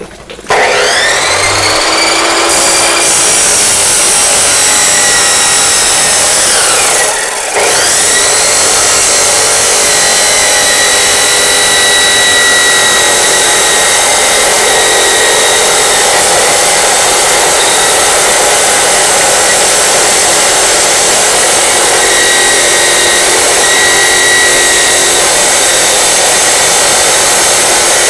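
Osaka 2300 W abrasive cut-off saw (chop saw) spinning up with a rising whine, then its large disc grinding through thick steel angle iron with a loud, steady grinding screech. About seven seconds in the sound briefly drops and the whine rises again before the cutting goes on steadily.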